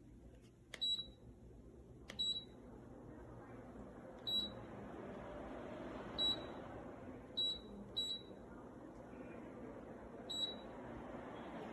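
Dreo Cruiser Pro tower fan beeping seven times as its controls are pressed: short, high beeps one to two seconds apart, two of them close together. Under the beeps, the steady rush of the fan's air grows louder, in step with the fan speeding up.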